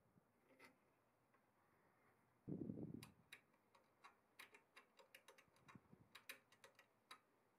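Small, quiet metallic clicks and taps at an uneven pace, from hands working a steel change wheel and its pointed indexing arm on a homemade dividing head. A low dull thump about two and a half seconds in is the loudest sound.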